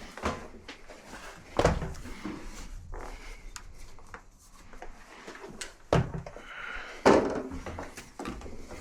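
Handling noises while working at the bottom of a front-load washer: three sharp knocks or clunks, about a second and a half in, at six seconds and at seven seconds, with lighter rustling and scraping between them.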